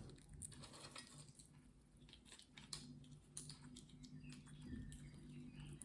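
Faint, irregular clicks and taps of a green-cheeked conure's beak picking at and crunching walnut pieces, over a low steady hum.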